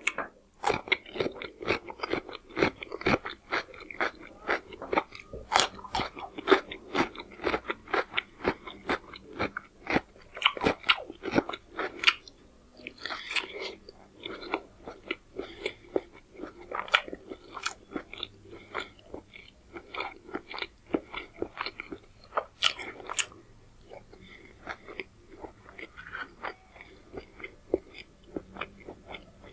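Crisp, close-miked crunching and chewing of raw cucumber slices: rapid sharp crunches with wet mouth sounds, thinning out to sparser chewing in the second half.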